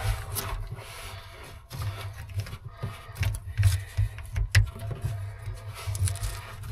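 Hands working electrical wiring connectors and cables in a cramped metal compartment: scattered sharp clicks and dull knocks as plugs are pushed together and leads are moved about.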